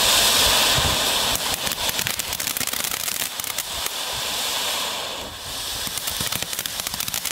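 Small category 1 ground fountain firework spraying sparks with a steady hiss, which turns into dense crackling from about a second and a half in.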